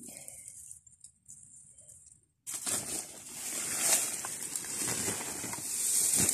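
Dry banana leaves and undergrowth rustling and crackling as someone reaches and rummages through them by hand, over a steady high hiss. Faint at first, it becomes much louder and busier about two and a half seconds in.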